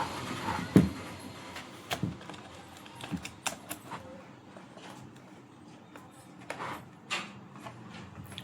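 Irregular light clicks and knocks from hard objects being handled, with gaps of up to a few seconds between them.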